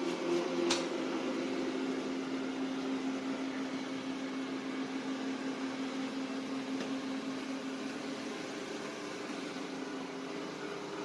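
Steady hum of a small motor running, with a single sharp click just under a second in; the hum shifts up in pitch near the end.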